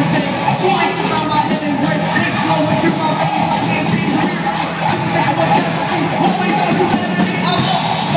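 Live rock band playing loudly: electric guitars and drums keeping a steady fast beat, with a vocalist singing into a handheld microphone.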